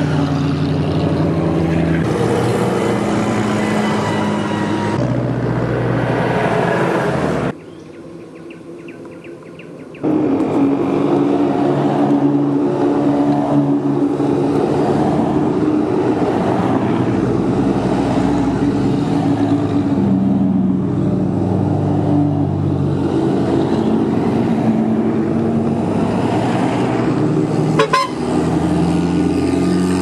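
Off-road 4x4 vehicle engines running, in a string of abrupt cuts, with a much quieter stretch of a few seconds partway through.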